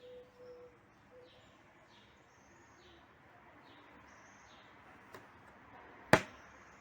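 Faint high chirps repeating about twice a second, with a small click about five seconds in and a single loud, sharp click about six seconds in.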